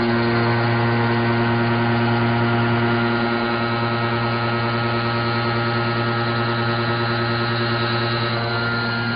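Walter Xtra-tec disc milling cutter (125 mm, six inserts) cutting 42CrMo4 steel: a loud, steady, pitched machining hum that holds even throughout.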